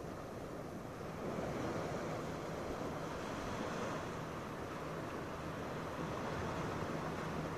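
Small waves washing onto a sandy beach: a steady, even surf wash that swells slightly about a second in.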